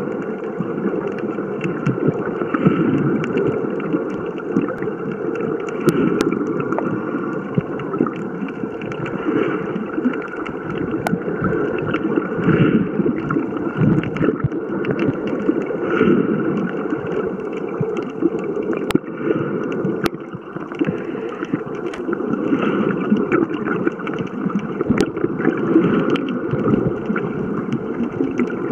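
Muffled underwater sound picked up through a camera's waterproof housing: water rushing and gurgling around the camera as it moves, with a few sharp clicks.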